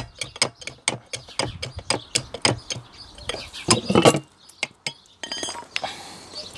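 Metal tool clicking and clinking against the cast-iron gearbox housing of a walk-behind tractor as its bolts are undone: a fast run of short sharp clicks, with a louder, longer scrape about four seconds in.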